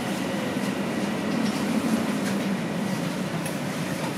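Toronto Rocket subway train heard from inside the car as it slows to a stop at a station platform: a steady rumble, with a faint falling whine in the first second as it brakes.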